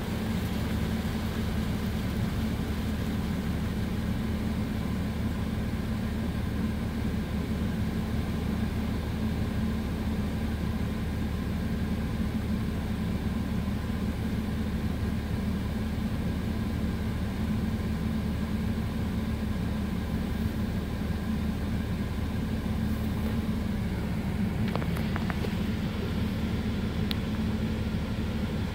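Automatic car wash running over a dually pickup, heard from inside the closed cab: a steady mechanical hum with a few constant tones and an even hiss of water spray, with a couple of faint ticks near the end.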